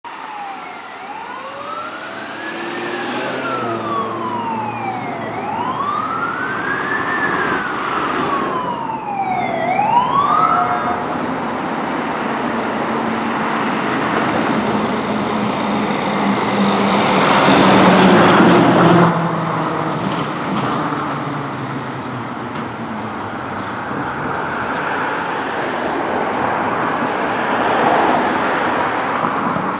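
A fire truck's electronic siren wails in slow rising and falling sweeps, then stops about a third of the way in. A heavy truck engine and road noise then build to their loudest about two-thirds in and cut off abruptly.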